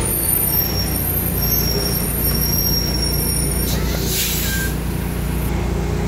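Diesel engine of a tractor-trailer semi truck running steadily as the rig rolls slowly past and pulls away, with a short hiss of air a little under four seconds in.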